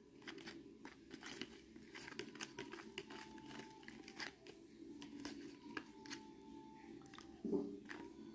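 Plastic spoon stirring and scraping through milk in a plastic bowl: light, irregular clicks and scrapes against the bowl. A brief low voice-like sound comes near the end.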